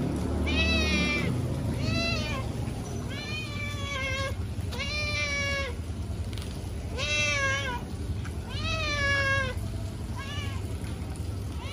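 Black-and-white cat meowing over and over, about eight meows each under a second long, several bending up and then down in pitch: a hungry cat begging for food.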